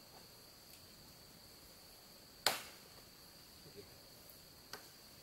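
Two sharp wooden knocks, a loud one about two and a half seconds in and a fainter one near the end, over a steady high-pitched insect drone.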